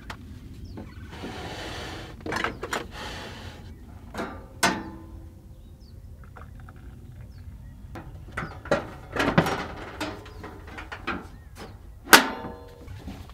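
Camp-kitchen handling sounds: a mug, kettle and camp-stove parts knocked and set down on a wooden counter, with scattered clicks and clanks. About a second in there is a hiss lasting about two seconds. About twelve seconds in comes the loudest sound, a ringing metallic clank as the stove is handled.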